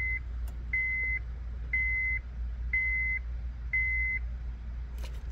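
Electronic beep repeating about once a second, each beep a steady half-second tone, five in all, the last ending a little past the middle.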